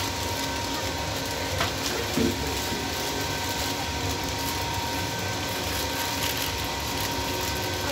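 Bakery rack oven running: a steady mechanical hum and whir with a faint, steady high whine over it, and a light knock about two seconds in.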